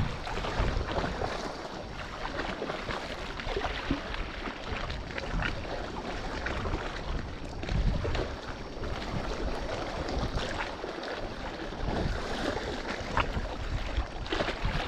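Wind buffeting the microphone over sea water lapping, a steady noisy rumble with a few small clicks scattered through it.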